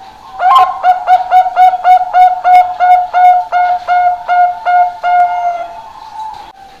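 Zebra dove (Bangkok-type perkutut) cooing: a fast series of about sixteen short, clear, flute-like notes, about three a second, starting about half a second in and fading out near the end.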